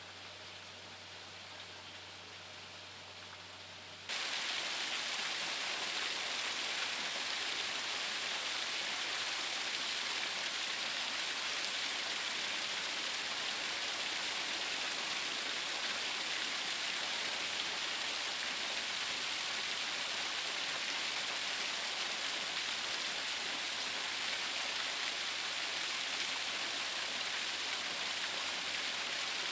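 Fainter flowing water for about the first four seconds, then a sudden step up to a small waterfall splashing down onto rocks into a pool: a steady, loud rushing splash.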